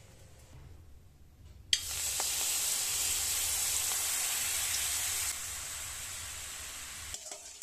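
A hot wok sizzling as a thin stream of brown liquid is poured in and bubbles. The sizzle starts suddenly about two seconds in, eases somewhat a few seconds later and dies away near the end. Before it there is only faint room tone.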